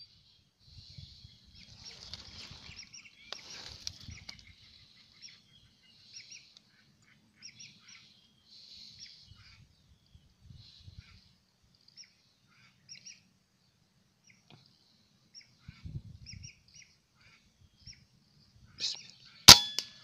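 Lesser whistling ducks giving many short, high whistling calls. Near the end a single sharp rifle shot cracks out, with a brief metallic ring after it.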